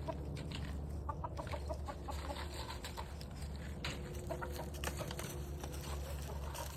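A flock of chickens clucking, with short soft calls scattered through, over a steady low hum.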